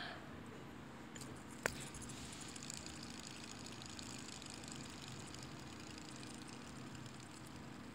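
A black fidget spinner flicked into motion with a sharp click, then its bearing whirring faintly with a fine rapid ticking as it spins, slowly fading.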